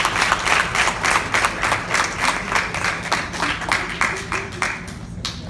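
Audience applauding, the clapping thinning and dying away near the end, with one last single clap just before it stops.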